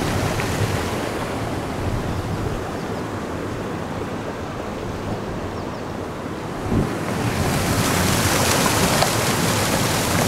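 Fast water rushing and foaming over seaweed-covered rocks, with some wind on the microphone. The sound dulls for a few seconds in the middle, then a short thump about seven seconds in, after which the rush comes back brighter and louder.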